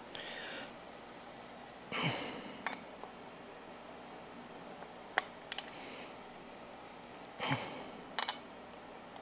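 Hand tool working the fasteners of an aluminum motorcycle floorboard: a few sharp metallic clicks, with two heavy breaths of effort, about two seconds in and about seven and a half seconds in.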